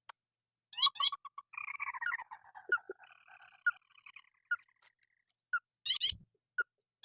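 Calls of a paddy-field rail: a rapid run of sharp repeated notes about a second in, then slurred, overlapping calls, and short separate call notes in the second half. There is one low thump about six seconds in.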